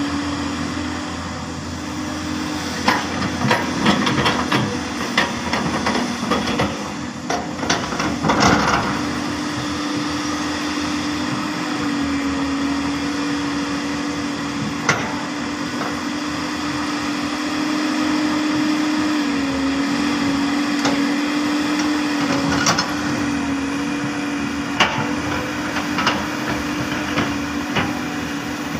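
Hyundai R330LC-9S excavator running at a steady pitch, with scattered knocks and clanks from the bucket working soil out of a dump truck. The knocks are thickest in the first ten seconds.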